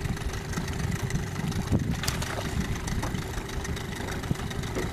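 Small outboard motor idling, a steady low running sound under an uneven rumble, with a sharp click about two seconds in.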